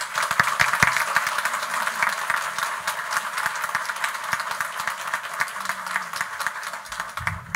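A small audience applauding, many hands clapping at once. It holds fairly steady, eases slightly, and stops just before the end.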